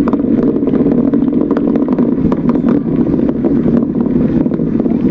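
Distant rumble of the Atlas V rocket's RD-180 engine and solid rocket boosters reaching the viewing site, a steady low roar with crackling running through it.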